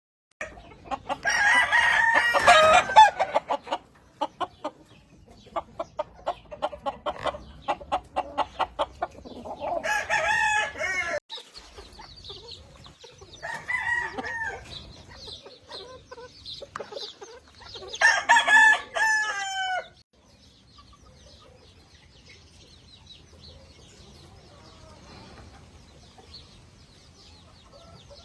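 Gamefowl roosters crowing, with about four loud crows that each fall in pitch at the end, and quick rhythmic clucking between them; after about twenty seconds only faint distant calls remain.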